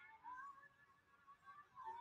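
Near silence, with a faint held tone that wavers slightly. It drops away about halfway through and comes back near the end.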